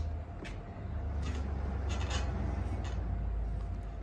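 Steel tire spoons levering a soaped rubber tire bead over the rim of an electric scooter wheel: faint rubbing and scraping, with a steady low rumble underneath.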